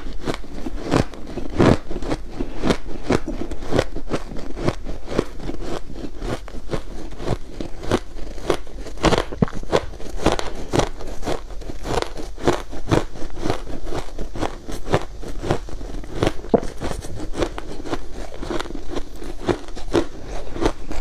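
A big mouthful of crushed ice being chewed, with dense, irregular crunches that go on without a break.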